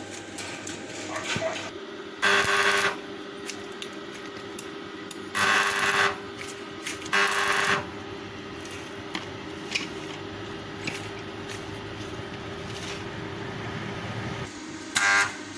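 A small motor whirring in four short bursts, each under a second long, with a faint steady hum between them.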